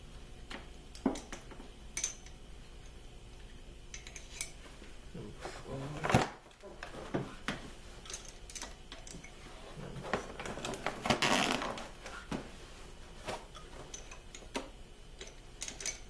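Metal engine push rods clinking and tapping as they are drawn out one at a time and set into a cardboard holder: scattered sharp clicks, a louder knock about six seconds in, and a longer stretch of scraping and rustling around ten to twelve seconds in.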